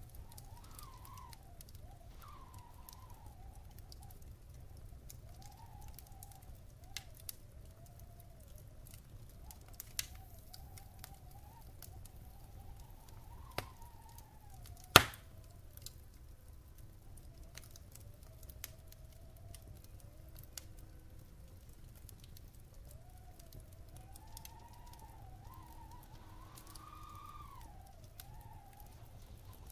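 Wood fire crackling in a fireplace: scattered snaps and pops over a low steady rumble, with one sharp, loud pop about halfway through. A faint whistling tone wavers up and down throughout.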